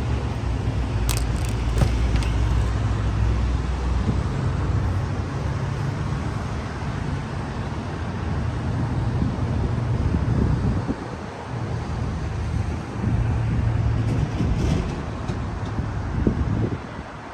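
A loud, uneven low rumble of outdoor background noise, with a few light clicks about a second in and again near the end.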